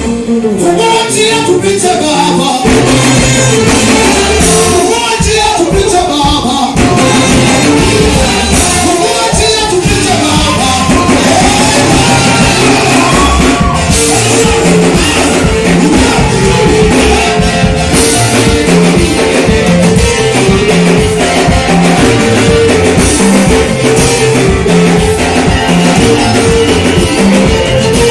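Worship music with singing over guitar; bass and drums come in with a steady beat about two seconds in.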